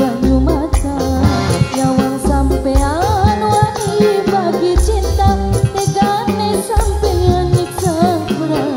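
Dangdut music: an ornamented, sliding melody line with singing over heavy bass and drums.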